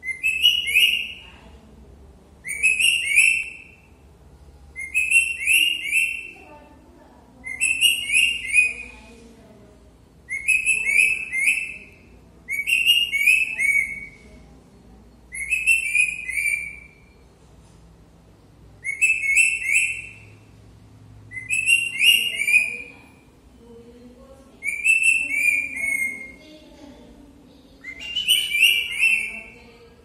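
Rose-ringed parakeet mimicking a phone's message ringtone: a short run of quick, high whistled notes ending in a falling note, repeated about eleven times at uneven gaps of two to four seconds.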